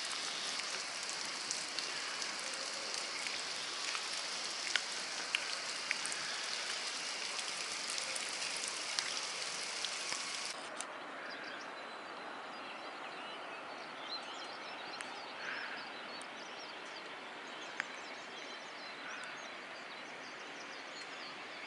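Quiet outdoor ambience: a steady hiss that drops and loses its highest part about ten seconds in, with a few faint bird chirps and small clicks.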